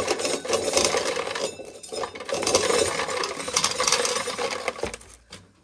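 Corn sheller stripping dry ears of corn, hard kernels rattling and clinking into a container, with a short lull partway through; the rattling dies away about five seconds in.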